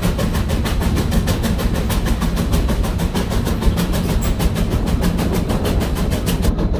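Steam locomotive running down the track, heard from the open car behind it: a steady, loud rumble of wheels and engine with rapid, even beats, several a second.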